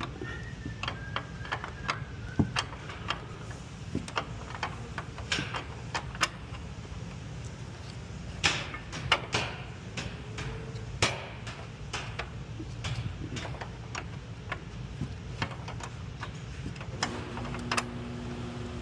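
Irregular metallic clicks and taps of a 10 mm line wrench working a car's brake line fitting loose. A steady two-tone hum starts near the end.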